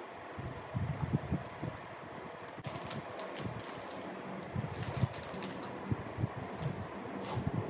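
Plastic wrapper of a Choco Pie crinkling and crackling in bursts as it is handled and worked open by hand.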